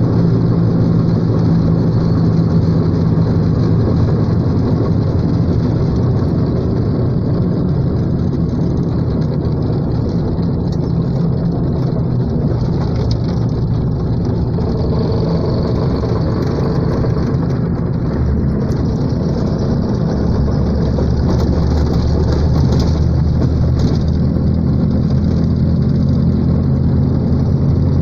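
A vehicle's engine running steadily while it drives along a dirt road, heard from inside the cabin. The engine note changes about two-thirds of the way through.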